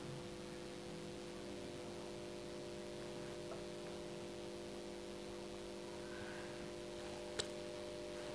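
Steady electrical hum made of several fixed tones over a faint hiss, with one short click about seven seconds in.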